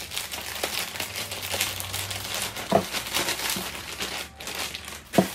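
Plastic mailer bag being torn open and handled, the plastic crinkling throughout, with two louder clicks, one about halfway and one near the end.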